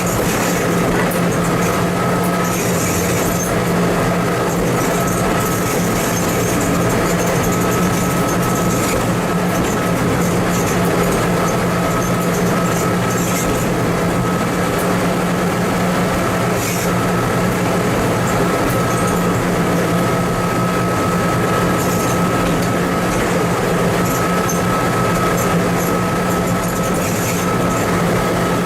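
TMC200 snow-removal motor car's engine running steadily on the rails: an even low drone with a thin, steady higher whine above it and light scattered ticks.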